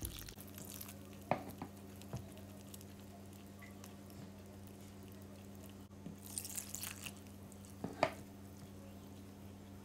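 Wire whisk stirring a thick flour-and-egg batter in a glass bowl: soft squelching with a few sharp taps of the whisk on the glass, the loudest about eight seconds in. A low steady hum runs underneath.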